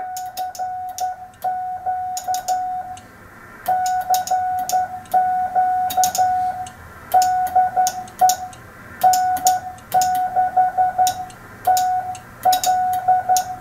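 CW Morse code from a Johnson Navigator tube transmitter, heard as a receiver's beat note of about 700 Hz keyed in dots and dashes, with sharp clicks on many of the elements. The note holds one steady pitch with no chirp, and it is judged to sound great.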